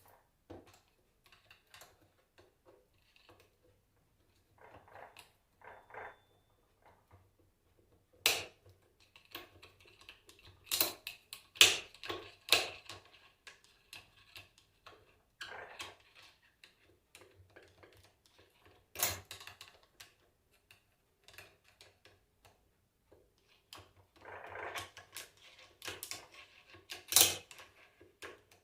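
Hand tools clinking and knocking on metal, with light rattling and scraping between the blows, as the rear ball bearing is worked off an alternator rotor shaft. Several sharp knocks stand out, the loudest about eight, eleven to thirteen, nineteen and twenty-seven seconds in.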